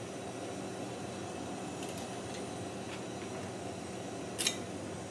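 Steady low hum and hiss of neon-workshop equipment, with a single short glassy click about four and a half seconds in as the glass tube is handled.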